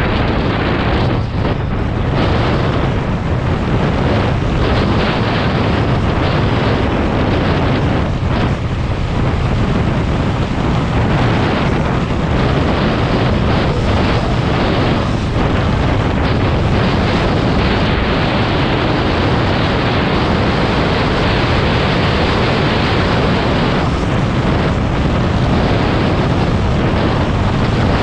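Loud, steady wind buffeting the microphone, with a low rumble underneath.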